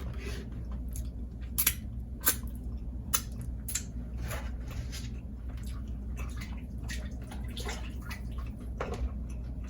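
Wet mouth smacks and lip clicks of someone eating with their hands, scattered and irregular, a few sharper ones in the first four seconds, over a low steady hum.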